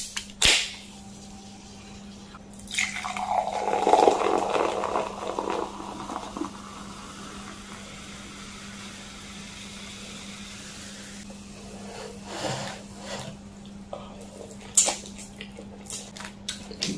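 A Coca-Cola can's tab cracks open with a sharp pop right at the start. A few seconds later cola is poured into a glass mug of ice, splashing and fizzing, and the carbonation hisses for several seconds after. Near the end come a few clicks and slurps of eating.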